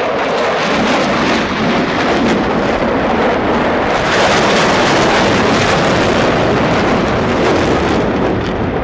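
Jet engine noise of a large formation of F-16 fighter jets flying past, a loud, continuous roar of noise that swells about four seconds in.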